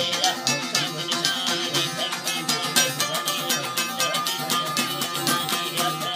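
Baloch folk music: long-necked lutes plucked in a fast, even rhythm over sustained drone-like tones.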